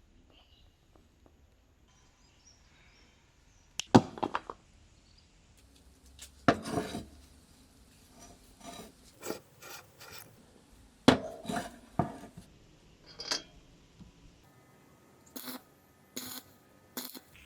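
Metal parts clinking and clanking as they are handled, a series of separate sharp knocks. The loudest come about four, six and a half and eleven seconds in, with lighter clinks near the end.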